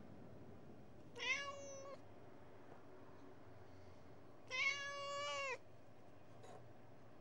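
Domestic cat meowing twice, a short meow about a second in and a longer one after a pause of about two and a half seconds.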